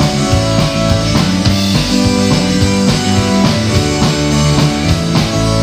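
A live band playing the instrumental opening of a song, with a steady drum beat under sustained bass and guitar notes.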